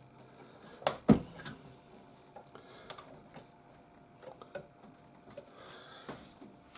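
RAM stick being pressed into a motherboard slot, the slot's plastic retention clips snapping shut with two sharp clicks about a second in, followed by a few fainter clicks and handling taps.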